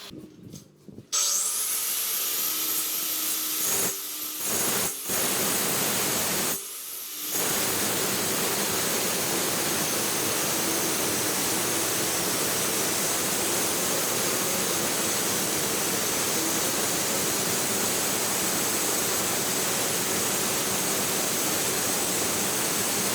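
A power tool running steadily with a high whine, cutting, as in work on a porcelain sink installation. It starts about a second in, breaks off briefly a few times in the first seven seconds, then runs without a break.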